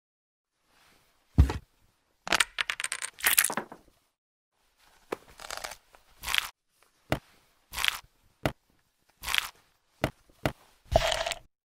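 A series of short crunching and tearing sound effects set one by one to stop-motion steps of handling modelling dough and cut shapes. There is a low thud about a second and a half in, a rapid crackling run just after it, and then single crunches spaced under a second apart.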